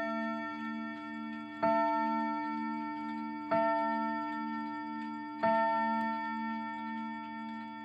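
Hamilton Wheatland chime clock striking the hour: three strokes on the same note, about two seconds apart. Each stroke rings on and fades slowly with a wavering low hum.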